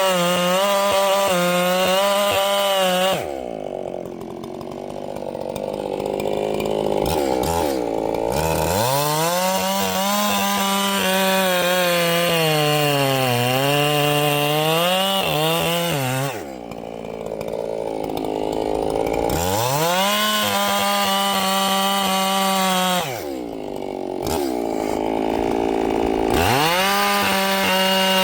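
Ported Echo 7310 two-stroke chainsaw running hard at high revs, its pitch sagging and recovering as it cuts through wood. Three times the throttle eases off and the revs wind down before it screams back up.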